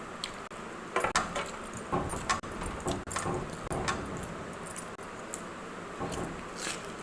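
Eating noises: a run of short metallic clinks and clicks, busiest between about one and four seconds in and sparser after.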